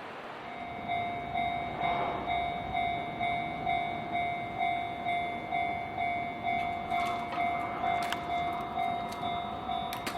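Japanese level crossing's electronic warning bell ringing its repeating 'kan-kan' tone, about two strikes a second, starting about half a second in: the signal that a train is approaching and the gates are coming down.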